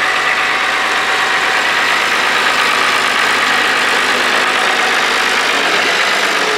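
International 1456 Turbo tractor's turbocharged six-cylinder diesel engine running steadily as the tractor is driven slowly, with a steady high whine over the engine note.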